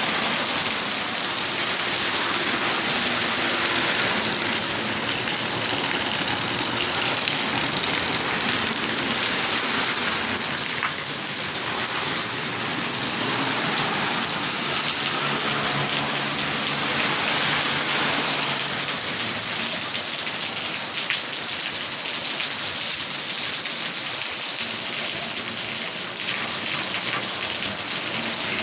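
Water falling and splashing steadily as a small waterfall, a continuous even rush.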